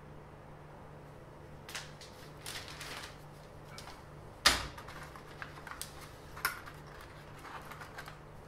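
Scattered light taps, clicks and paper rustles as a flexible curve ruler is laid down and pressed flat onto paper on a workbench, with one sharp knock about four and a half seconds in, over a faint steady hum.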